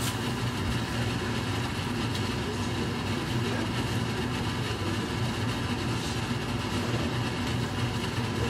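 A steady low machine hum, unchanging throughout, like a household appliance running.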